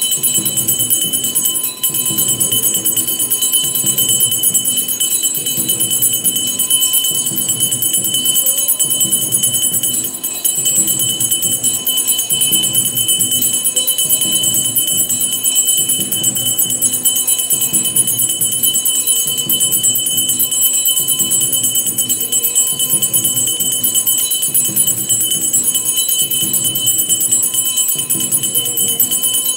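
A puja bell rung without pause for the aarti, its high ringing steady throughout, over devotional music with a regular pulsing beat.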